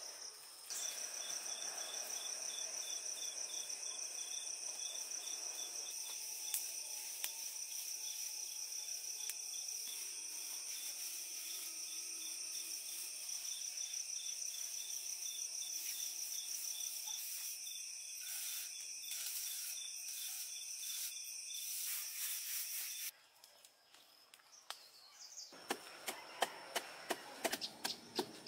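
Steady high chirring of insects, a pulsing insect chorus, which stops about 23 seconds in. Near the end comes a quick run of sharp knocks and scraping: a wooden stick pounding green leaves against concrete.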